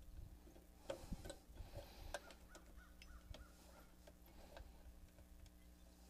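Faint, irregular clicks and small scrapes of push-on wire terminals and needle-nose pliers being worked onto the spade terminals of a new air-conditioner contactor. A few sharper clicks come between about one and three and a half seconds in.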